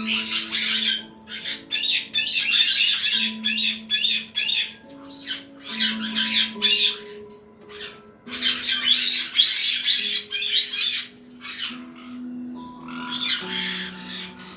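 Caique parrots screeching in repeated harsh bursts, with a string of looping whistled calls about nine to eleven seconds in. Soft background music with sustained notes plays underneath.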